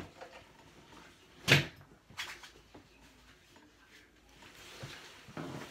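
Handling noise as things are moved about: one sharp knock about one and a half seconds in, a lighter one soon after, and faint rustling.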